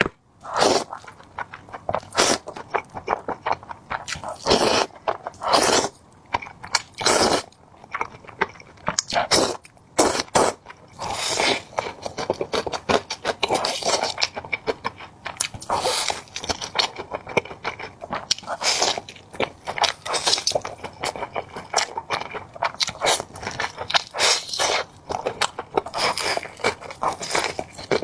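Close-miked eating: crunchy bites and chewing, an irregular run of sharp crackly sounds with louder crunches every few seconds.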